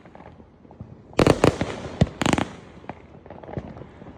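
Aerial fireworks exploding: a quick cluster of loud bangs about a second in, then another single bang and a burst just after two seconds, with fainter crackling in between.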